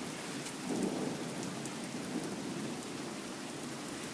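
Steady rain falling on a wet paved path and lawn, with fine patter of drops, and a brief low rumble swelling about a second in.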